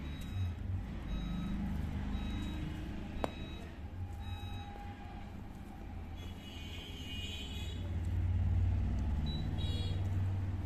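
Low, steady rumble of a motor vehicle engine that grows louder about eight seconds in, with faint short high beeps in the first few seconds and a single click.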